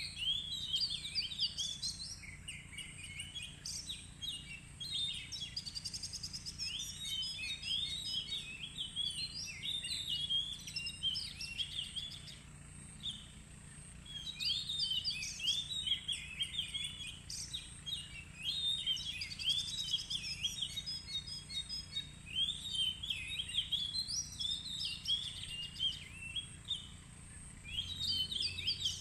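Oriental magpie-robin singing: long runs of rich, varied whistled phrases, breaking off briefly about twelve seconds in before resuming. A faint steady high tone runs underneath.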